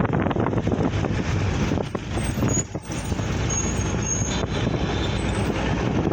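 Steady traffic noise from vehicles on the road, with wind rumbling on the microphone. The noise dips briefly about two and a half seconds in.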